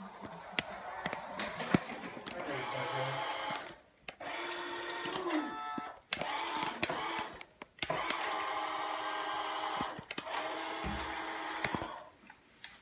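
Small electric drive motor of a toy RC car whining in repeated bursts of a few seconds, cutting off briefly between them, with one rising spin-up about five seconds in.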